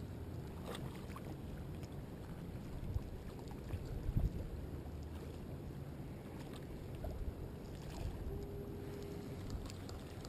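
Steady low rumble of ocean water and wind, with a few faint clicks and a brief steady hum a little after eight seconds.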